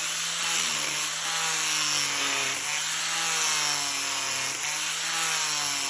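Handheld power tool cutting into wood, its motor pitch dipping and rising as the load changes.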